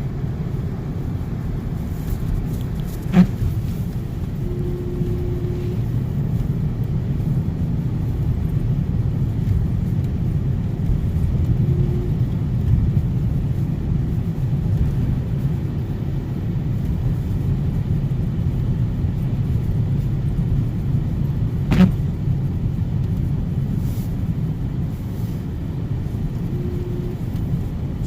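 Steady low rumble of a car's engine and tyres on a snowy road, heard from inside the cabin while driving. Two sharp knocks come through, one about three seconds in and one about two-thirds of the way through.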